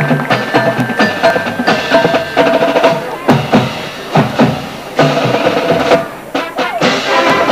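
Drum and bugle corps playing: bugles hold long notes over snare and bass drums, and for short stretches the drums carry the music alone.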